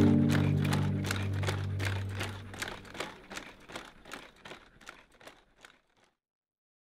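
Quick, regular crunching steps on gravel, about three a second, from the Digit bipedal robot's feet walking a gravel path. They fade out together with a held low music chord, ending in silence about six seconds in.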